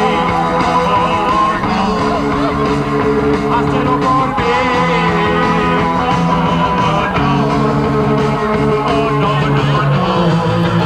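Live rock band playing loud and steady, with amplified guitars and bass.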